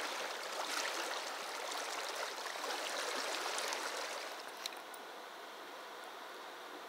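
Shallow river riffle rushing and burbling over rocks. About four and a half seconds in there is a click, and the sound drops to a quieter, steady hiss.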